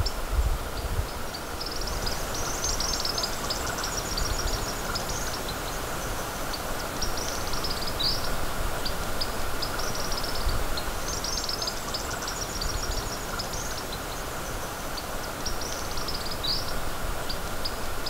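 Bahama nuthatch giving high-pitched, squeaky chittering calls: four quick runs of notes, one every few seconds, over a low wind rumble on the microphone.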